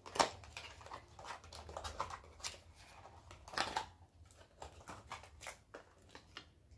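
Close handling noises: irregular small clicks and taps, one to a few a second, the loudest just after the start.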